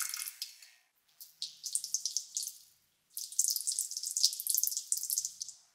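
Crackling, hissing sizzle of a metal nitrate and citric acid mixture boiling and foaming in a glass beaker as its water is driven off, on the way to yttrium barium copper oxide. It comes in three bursts of one to two and a half seconds, with short silent gaps between them.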